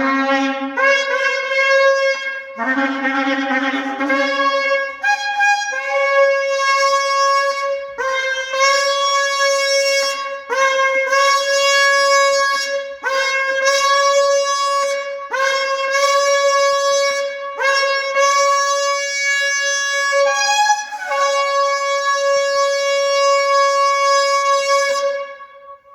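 Male sable antelope horn shofar blown in a series of separate blasts, each scooping up into its note. A couple of lower notes come near the start. The last blast is held longest before it cuts off near the end.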